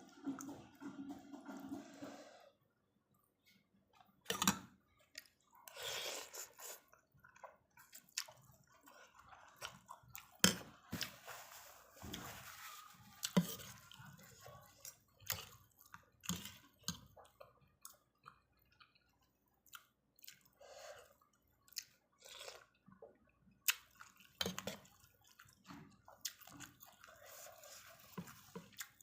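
Close-up eating sounds of a person eating pork noodle soup: chewing and slurping noodles and broth, with irregular small clicks and wet sounds.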